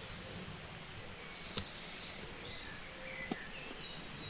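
Woodland ambience: scattered short bird chirps and calls over a steady outdoor hiss, with two faint clicks, one about a second and a half in and one near the end.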